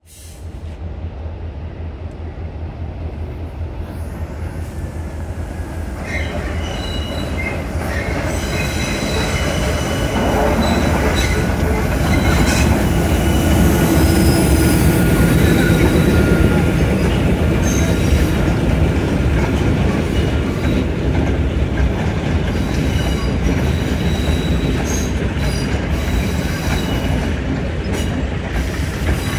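Sri Lanka Railways Class M4 (MLW MX620) diesel-electric locomotive arriving slowly at a platform. Its diesel engine rumbles, growing louder as it passes, and then its passenger carriages roll by. High-pitched wheel squeal from the rails comes in a few seconds in and carries on.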